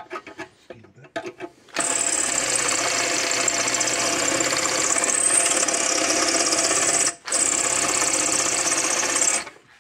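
Power drill running as it bores through the sheet-metal housing of a fence charger. It starts about two seconds in, stops for a moment once, and runs on until just before the end, with light handling clicks before it starts.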